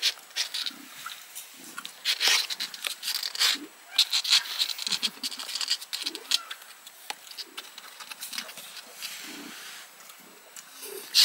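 Month-old kittens mewing in short, high cries, on and off.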